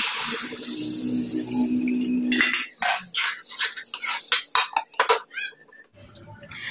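Water poured from a metal kettle into a hot wok of fish curry, then a metal ladle clinking and scraping against the wok in a quick series of strokes as the curry is stirred.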